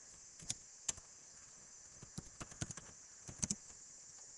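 Computer keyboard typing: faint, scattered key clicks, a couple of single taps and then two quick runs of keystrokes, over a steady high hiss.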